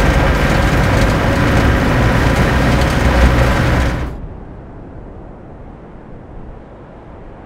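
Engine and road noise inside the cab of a moving utility vehicle: a steady low rumble with rattling. About four seconds in it cuts off abruptly to faint outdoor ambience.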